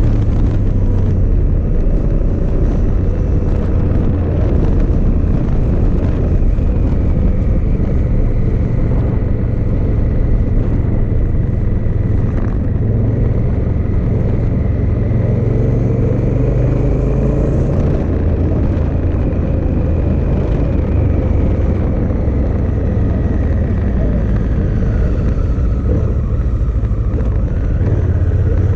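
2018 Honda Africa Twin DCT's parallel-twin engine running at a steady road pace, mixed with wind noise on the microphone. The rumble is loud and steady, with only slight changes in pitch.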